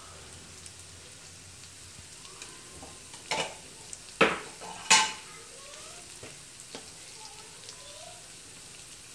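Onions and spices frying gently in oil in an aluminium kadai, with a soft, steady sizzle. Three sharp clinks of a utensil against the pan come between about three and five seconds in.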